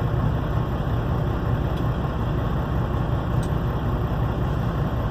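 Steady low rumble of a semi-truck's idling diesel engine, heard inside the cab, with two faint clicks in the middle.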